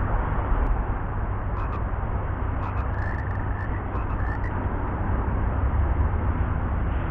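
Frogs calling in a swamp: a run of short, clicky croaks between about one and a half and four and a half seconds in, over a steady low rumble of wind and outdoor noise.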